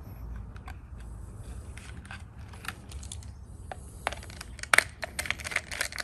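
Small sharp clicks and taps as wire ends are worked into an alarm keypad's screw terminal block and its screws are tightened with a small screwdriver. The clicks are sparse at first and come thicker and louder from about two-thirds of the way through.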